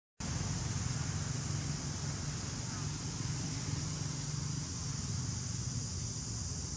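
Steady outdoor background noise: a constant high-pitched hiss over a low hum. It drops out briefly at the very start.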